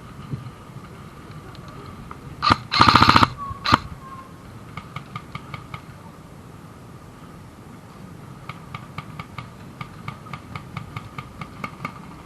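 Airsoft gun firing a short full-auto burst of about a second, with a single shot just before and after it. Fainter runs of rapid ticks from more airsoft fire come later.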